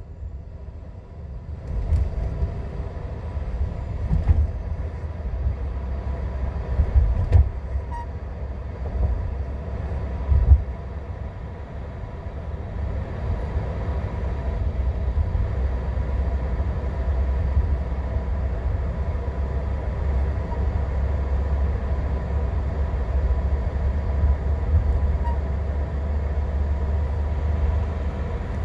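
A 2013 Mercedes-Benz SL550 rolling with a steady low rumble and a faint steady whine. There are sharp knocks about 2, 4, 7 and 10 seconds in. This is the strange noise the owner places in the left rear of the car.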